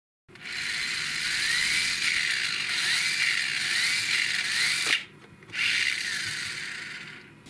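Small electric motor and gear drive of an Emax Eachine Interceptor mini RC car running, with a whine that rises and falls about once a second. It cuts out briefly about five seconds in, starts again, and fades near the end.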